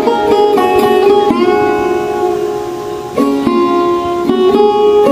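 Background music: a plucked string instrument plays a melody. One note is held and dies away through the middle, then plucked notes pick up again.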